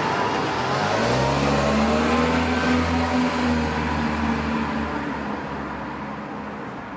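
A vehicle engine picks up speed about a second in, holds a steady note, then fades away as the noise dies down.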